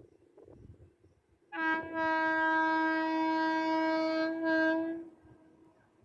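Indian Railways locomotive horn sounding one long steady note for about three and a half seconds, starting about a second and a half in, with a brief dip just before it stops.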